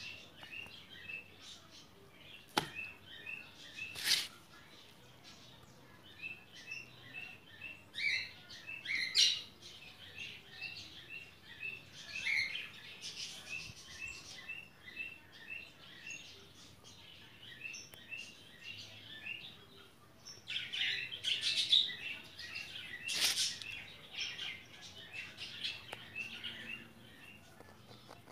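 Small birds chirping: a run of short, high chirps repeated about three times a second, with louder bursts of calls now and then. A few sharp clicks, the loudest about four seconds in.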